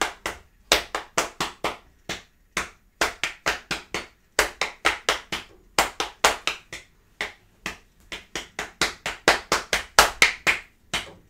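Palms slapping on the thighs, tapping out a syncopated rock-style rhythm in quick patting phrases with brief pauses between them.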